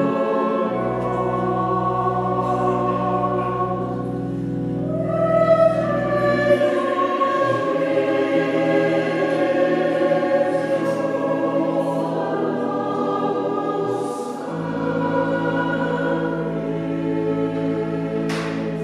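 Mixed choir singing a slow choral anthem, with long sustained low organ notes underneath for much of it.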